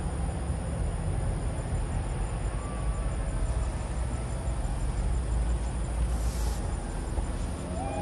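Outdoor evening ambience: a steady background hiss over a low rumble, with insects chirping high in a fast, even pulse. A brief high hiss comes about six seconds in.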